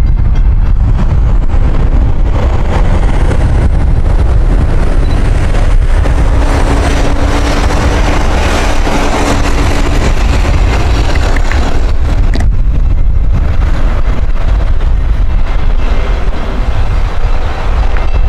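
Wind buffeting the microphone with a steady low rumble, while an electric commuter train approaches from a distance. A broad rushing noise swells through the middle and drops off sharply about twelve seconds in.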